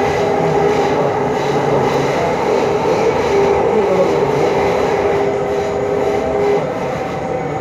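A metro train running at speed, heard from inside the coach: a steady rumble of wheels on rail with a whine that wavers a little.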